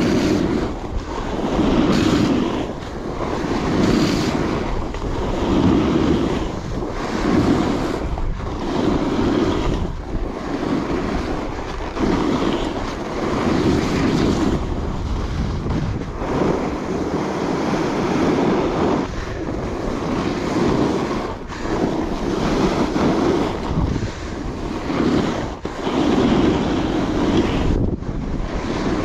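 Wind rushing over a chest-mounted GoPro's microphone, together with the hiss of an alpine snowboard's edges carving groomed snow. The rush swells and falls away about every two seconds, in time with the turns.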